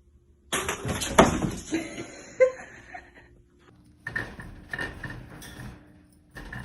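Clattering and clinking of hard objects with a few sharp knocks, starting about half a second in, pausing briefly, then going on more scattered.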